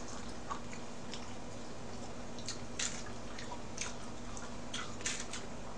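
A person eating and chewing raw mullet sashimi close to the microphone, with a scattering of short, wet mouth clicks over a steady low hum.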